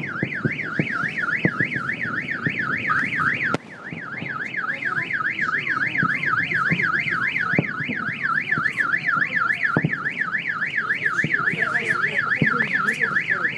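Car alarm siren warbling rapidly up and down, about four to five sweeps a second, set off by the meteor's air-burst shock wave.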